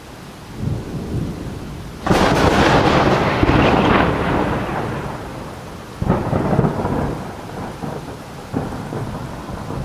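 Two claps of thunder, each a sudden loud crack that rolls off into rumbling over several seconds: the first and louder about two seconds in, the second about six seconds in, over a low rumble.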